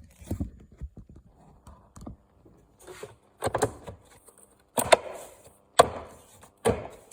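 Hard plastic knocks and clicks from the UPS battery pack's case as it is handled and closed up. Several sharp knocks come about a second apart in the second half.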